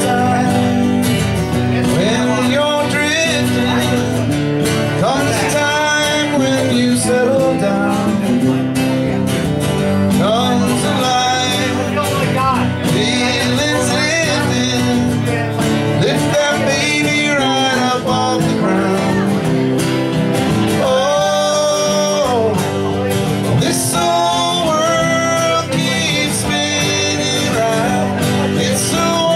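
Live acoustic duo: two acoustic guitars playing a country-bluegrass style tune, with a sung vocal line.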